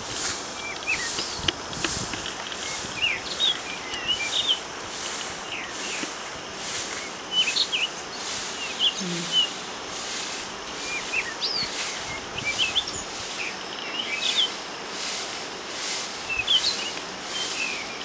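Several small birds chirping in short, high, quick calls scattered through the whole stretch, over a steady outdoor hiss that swells in an even pulsing rhythm, a little more than once a second.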